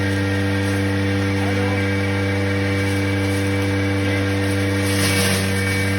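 Wood chipper machine running steadily with a constant humming drone, with a brief rushing hiss about five seconds in.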